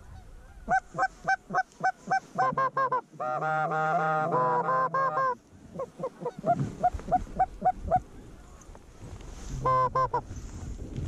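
Canada goose honks and clucks: a quick run of short clucks, about four a second, then a dense burst of longer honks, more clucks, and one short burst of honks near the end.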